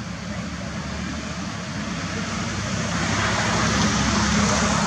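Engine noise of a passing motor vehicle, a low steady hum under a wide rushing noise, growing steadily louder as it approaches.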